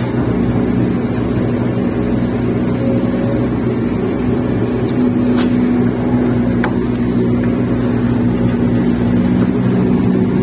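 Kobelco excavator's diesel engine running steadily under load, heard from inside the operator's cab, with a few faint clicks from the machine.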